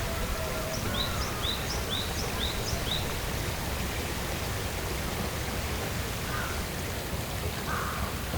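A bird gives a quick run of five short, high, down-slurred chirps, about two a second, followed near the end by a few lower, harsh calls, over a steady outdoor background rumble.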